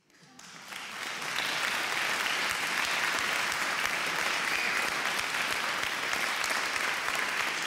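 Audience applauding, fading in over the first second or so, then a steady, dense clapping.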